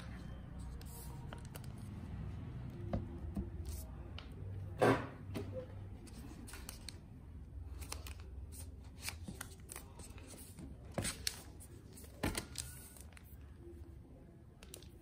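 Hands handling a new laptop and its packaging: rustling and crinkling of the protective wrap, loudest about five seconds in, with a few light taps and clicks later on.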